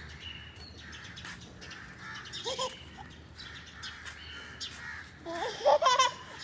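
Crows cawing over a steady background of bird chirping, with a short call about two and a half seconds in and a loud run of caws near the end.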